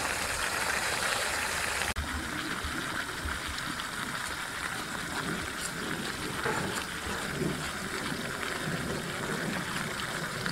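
Steel pan of spicy dry-pot seafood and vegetables sizzling over its tabletop burner, a steady hiss, with chewing mixed in. The sound changes abruptly about two seconds in.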